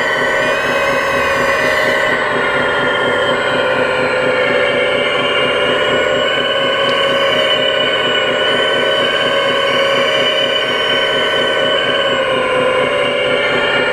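Hydraulic pump of an RC scale hydraulic excavator modelled on a Hitachi Zaxis 330, whining steadily as it drives the boom, bucket and swing. Its pitch sags slightly in the middle and rises again near the end.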